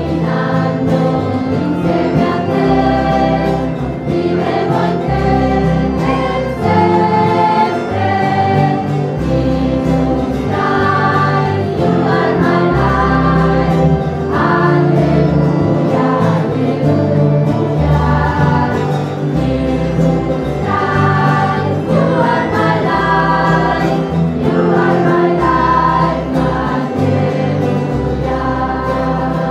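Choir singing a hymn over instrumental accompaniment with held bass notes, without a break.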